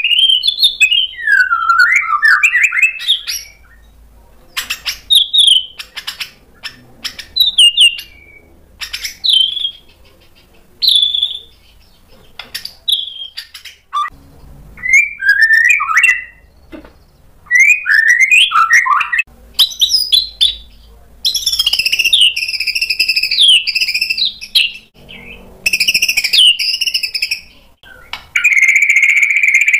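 White-rumped shama (murai batu) singing loud bursts of varied, fast-gliding whistled phrases with sharp clicks between them, separated by short pauses. Near the end a steady buzzing trill begins.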